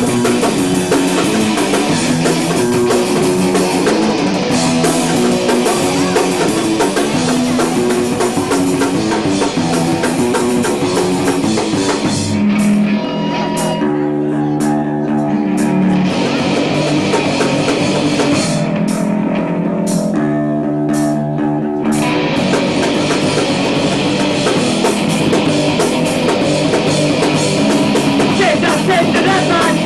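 A live rock band playing: electric guitar, bass and drum kit. Twice in the middle the cymbals drop out for a few seconds, leaving the guitar and bass notes with a few drum hits.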